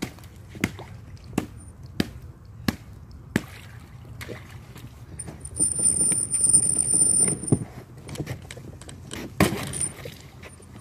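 A hand-pulled chain raft being hauled through thin pond ice: sharp cracks and clinks come about every three-quarters of a second, then a few seconds of denser crunching and grinding of ice, with a thin high whistle over it, and one louder crack near the end.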